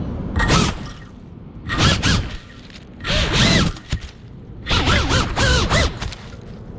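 FPV drone's electric motors spun up in four short throttle bursts, each a whine that rises and falls with a rush of propeller noise, while the drone is caught in dense undergrowth trying to pull free.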